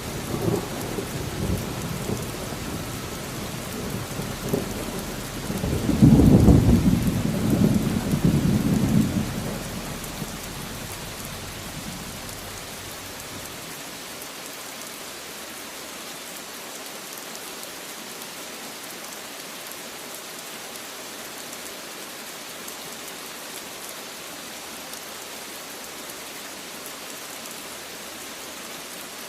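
Steady rain falling, with rolls of thunder: a low rumble at the start, then a louder roll about six seconds in that dies away over the next few seconds, leaving only the even hiss of rain.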